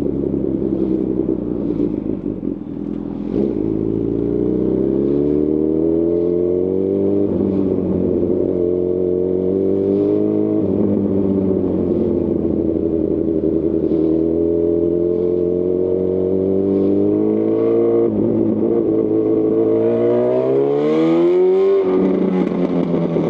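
2018 Honda CB1000R's inline-four engine through a Lextek CP1 full exhaust, accelerating up through the gears. The note climbs and drops back at each upshift, about five times, with a brief lift off the throttle about three seconds in and a hard rev climb near the end, cut by a shift.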